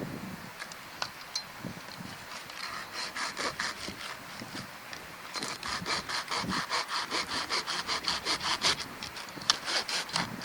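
Hand saw cutting through wood with quick back-and-forth strokes, about five a second, pausing briefly partway through.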